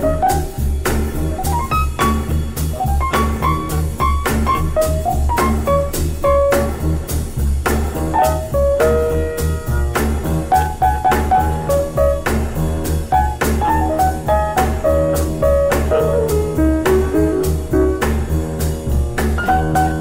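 Jazz piano trio playing an instrumental break: piano lines over double bass and drums keeping a steady swing beat.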